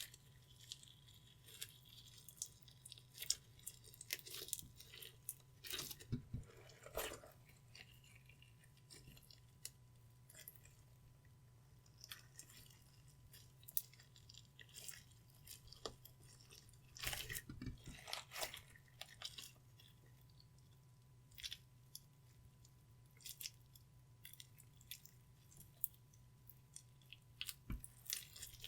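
Clear slime being kneaded and stretched by hand, giving faint, irregular sticky clicks and crackles.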